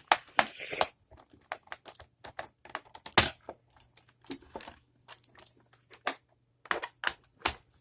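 A small screw being driven into the plastic case of a membrane keyboard with a screwdriver: irregular light clicks and scrapes, with a sharper knock about three seconds in.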